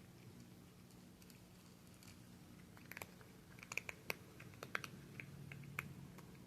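A cat chewing dry chicken kibble: a quick, irregular run of faint sharp crunches in the second half.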